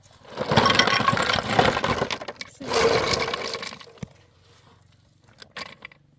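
Two long bursts of crunching, clattering demolition debris, each about two seconds long, starting about half a second in with the second following straight after the first.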